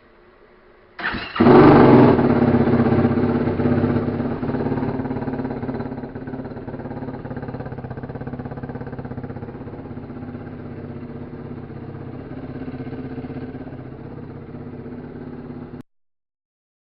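2016 Yamaha YFZ450R's single-cylinder four-stroke engine starting up about a second in, then idling through its stock exhaust with the baffle removed. The idle settles and runs steady before the sound cuts off abruptly near the end.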